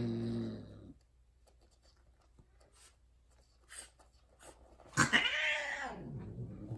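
Tortoiseshell Persian queen's low, drawn-out mating yowl, trailing off about a second in. Around five seconds in comes a sudden loud cry that rises and falls in pitch and fades over about a second, as the pair separate and she turns on the tom: the queen's typical outburst at the end of mating.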